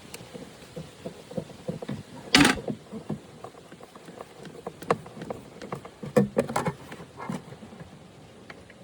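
Scattered light clicks and knocks of hands handling and positioning a small add-on flush tank against the side of an RV toilet, with one louder short rub or knock about two and a half seconds in.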